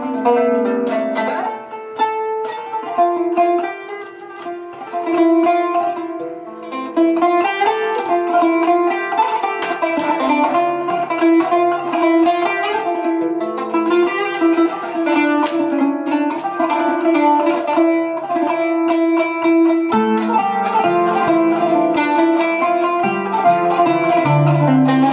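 Kanun (Turkish plucked zither) played solo: an improvised taksim in makam Nihavend, with rapid runs of plucked notes, a quieter, sparser passage a few seconds in, and low notes sounding near the end.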